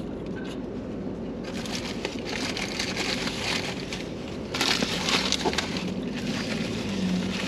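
Paper burger wrapper crinkling and rustling as a burger is unwrapped and handled, loudest about halfway through.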